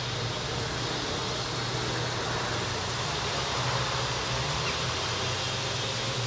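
Steady outdoor background noise of road traffic: a continuous even hiss over a low hum.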